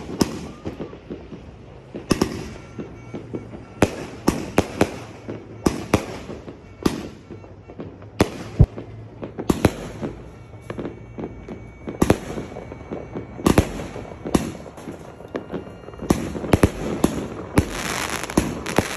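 160-shot fireworks display firing shell after shell: an irregular run of sharp bangs, about one to two a second, thickening into denser bangs and crackle near the end.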